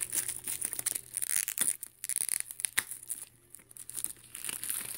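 Plastic shrink wrap crinkling and tearing as it is pulled off and handled around a DVD box set, a dense run of sharp crackles.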